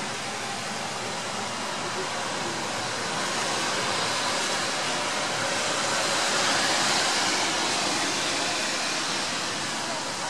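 Steady hiss of light rain falling, swelling a little for a few seconds around the middle.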